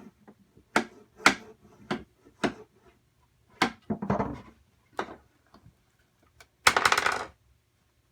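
Hammer striking a nail into the wooden corner joint of a beehive box: a run of sharp taps about half a second apart, then a few more spaced out, and a short rattling clatter near the end.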